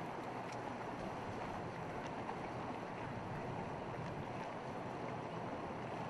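Honda 15 four-stroke outboard motor running steadily, pushing a small open boat through the water.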